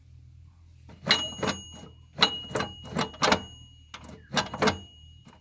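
Metal being struck repeatedly during tractor hydraulic pump repair: about a dozen sharp, uneven metallic knocks starting about a second in. A struck metal part keeps ringing with a thin high tone.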